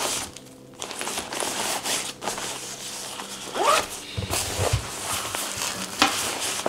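Fabric laptop bag being handled: a coiled power cable and brick are stuffed into its front pocket and the pocket is zipped shut, with cloth rustling and a few dull bumps as the bag is lifted.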